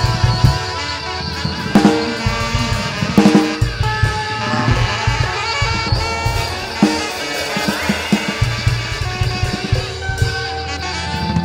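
Improvised live music: a drum kit played in fast, irregular hits of bass drum, snare and toms, over sustained electric tones from a lap steel guitar, some sliding slowly in pitch.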